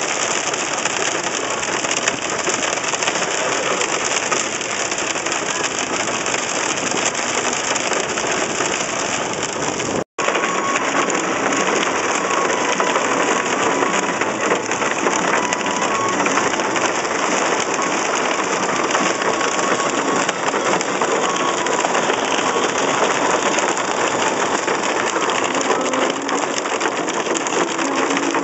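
Heavy rain and hail hitting the car's roof and windshield, a loud, dense, steady hiss heard from inside the car. It breaks off for an instant about ten seconds in.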